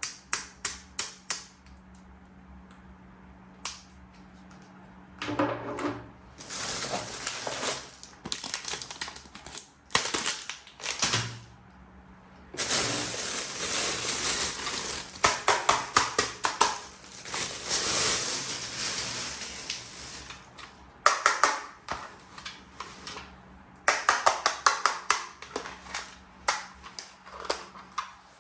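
Plastic toy weapon parts and their packaging being handled: runs of sharp clicks and taps, with long stretches of rustling in between.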